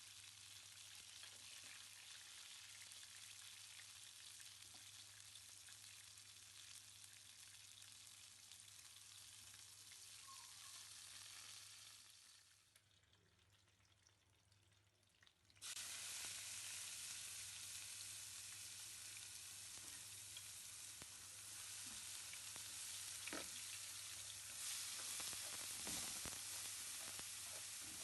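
Food frying in a pan: a steady, quiet sizzle that drops away for about three seconds around the middle and comes back louder, with a few light knocks near the end.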